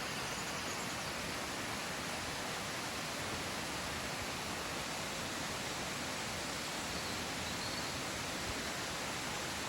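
Steady rushing of a small woodland waterfall: an even, unbroken wash of water noise.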